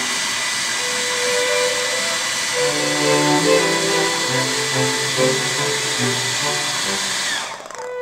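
Babyliss hair dryer running, a steady rush of blown air with a thin whine. Near the end it is switched off and the whine falls away as the fan winds down.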